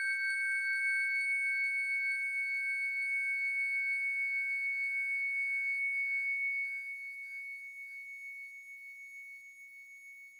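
microKORG synthesizer holding two high, pure tones that slowly fade. The lower tone dies away about seven seconds in, leaving the higher one fading out.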